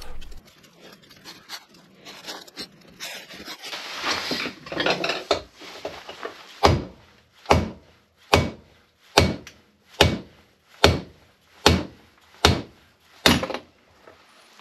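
A hammer strikes a socket extension held through a motorcycle wheel hub, nine evenly spaced blows a little under a second apart, driving out the remaining front wheel bearing race. Before the blows there are light clicks and handling noises.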